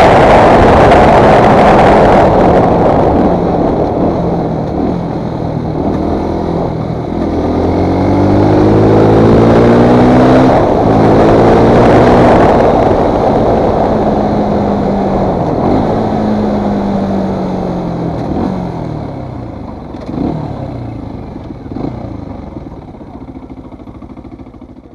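Fantic Performance 125 motard's four-stroke engine revving up, its pitch rising, then winding down with falling pitch. The sound fades away over the last ten seconds or so.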